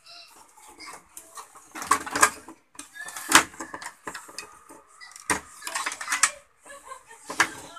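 Handling noise from the wiring harness and chassis of an opened CRT television: an irregular run of knocks and rustles as the wires and circuit board are pushed about by hand.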